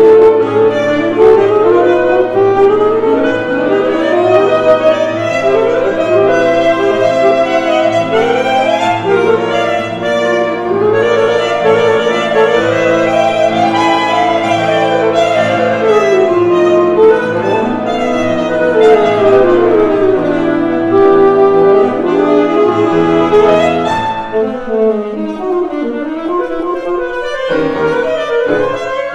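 Two saxophones and piano playing a fast classical chamber piece, with rapid runs sweeping up and down.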